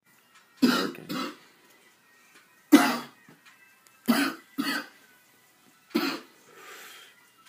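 A man coughing, six coughs in twos and ones, after drawing on smoke, then a softer breathy exhale near the end as he blows the smoke out.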